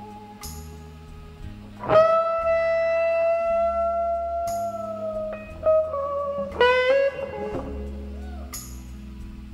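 Background music led by a guitar, which plays long held notes that slide in pitch over a steady bass line. A cymbal-like crash comes about every four seconds.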